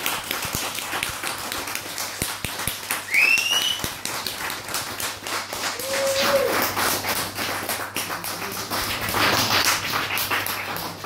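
Amplified experimental noise performance: dense crackling clicks and taps, two short gliding whistle-like tones, and a swell of noise near the end over a steady low hum.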